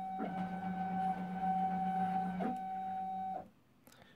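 Stepper motors of a home-built, 3D-printed CNC router whining at a steady pitch as the machine is jogged. The pitch glides briefly as moves start and change, and the whine cuts off about three and a half seconds in.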